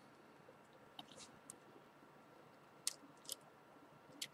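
A few faint, scattered clicks and taps of small plastic smartphone parts being handled during reassembly.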